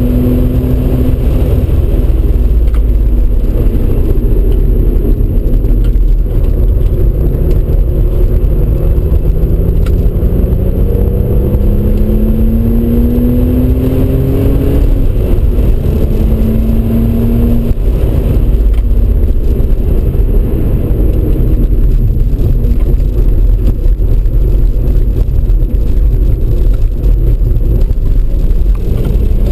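Audi RS4 B5's twin-turbo V6 driven hard, heard from inside the cabin over a heavy rumble of road and wind noise. The engine note climbs steadily in pitch for several seconds around the middle and again near the end, dropping back in between.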